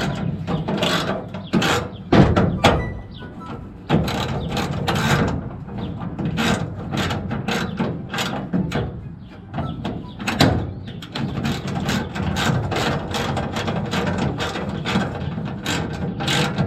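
Irregular mechanical clicking and clatter of metal parts being handled and worked, many short clicks in quick succession.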